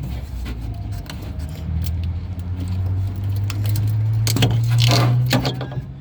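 Metallic clinking and rattling from handling the door latch actuator assembly and tools, with a louder clatter about four to five seconds in, over a steady low hum.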